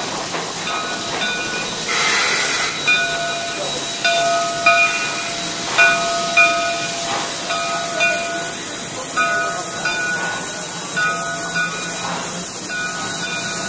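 Shay geared steam locomotive standing with steam hissing steadily, with a louder rush of steam about two seconds in. Short high tones recur every second or so over the hiss.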